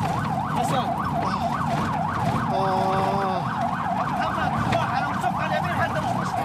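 Ambulance siren in a fast yelp, its pitch sweeping up and down about four times a second over a low engine rumble. A horn sounds for just under a second, about two and a half seconds in.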